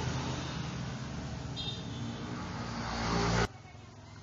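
Firman FPG 1500L's small four-stroke petrol generator engine running, a steady hum with a loud rushing noise over it. The rushing noise builds slightly and then drops away abruptly about three and a half seconds in, leaving the engine's quieter hum.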